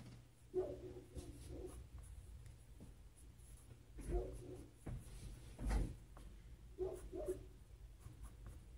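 Colored pencil scratching across sketchbook paper in quick, loose strokes that come in short bursts, with a soft thump a little past the middle.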